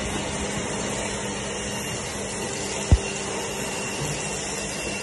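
Handheld fiber laser welder running while it welds steel with filler wire: a steady hiss with a faint hum. A single sharp knock comes about three seconds in.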